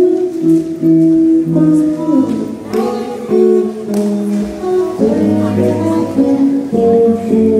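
Electric guitar played solo through an amplifier: a melody of held notes over chords, each note ringing for up to about a second before the next.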